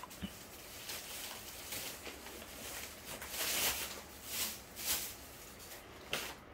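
Soft, intermittent rustling and scraping noises, about half a dozen short ones, with a short sharp click near the end.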